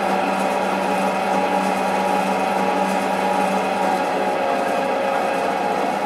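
Steady machine hum and whine from the swirling-pipe rig's drive machinery, which turns the pipe section, with a low hum and several held higher tones over a steady hiss.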